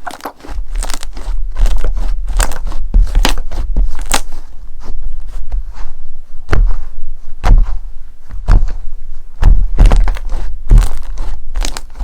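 Slime being squished and pressed, with dense crunchy crackling and clicking over deep, close thumps throughout.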